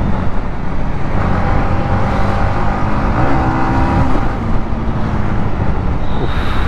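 Motorcycle engine running at riding speed in city traffic, under wind and road noise, its hum rising briefly in pitch a little after three seconds in.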